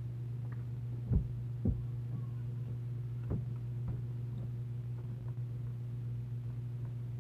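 A steady low electrical-sounding hum, with a few short knocks and clinks as a glazed cup is picked up and scooped from with a metal spoon. The two sharpest knocks come a little over a second in, and a lighter one comes about three seconds in.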